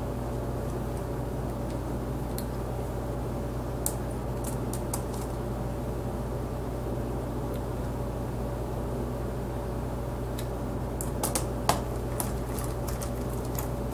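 Steady low hum with a few light clicks and taps, bunched near the end, from a small screwdriver and screws being handled over an opened laptop.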